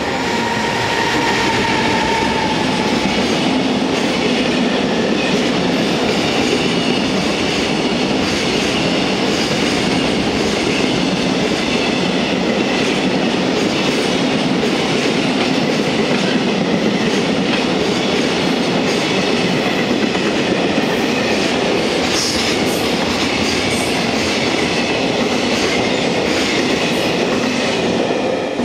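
JR Freight EF210 electric locomotive passing, followed by a long container freight train rolling by with steady wheel-on-rail noise. There is a brief, slightly falling whine in the first few seconds as the locomotive goes past. The noise drops off right at the end as the last wagons clear.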